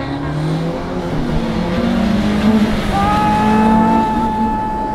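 Rally car engine running hard at speed. From about three seconds in, a high, steady squeal joins it.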